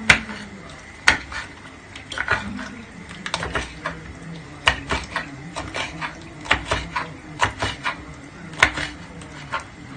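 Kitchen utensils clinking and knocking against cookware in irregular sharp clicks, a few louder knocks among them, as ingredients are added to a tagine.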